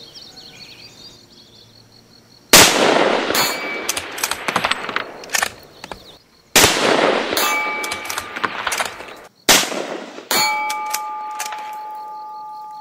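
A .308 GA Precision Gladius bolt-action rifle with a short barrel and muzzle brake fired three times a few seconds apart, each shot a loud crack with a long echoing tail. A steel target plate rings with a clear bell-like tone after the hits, the last strike ringing on steadily to the end.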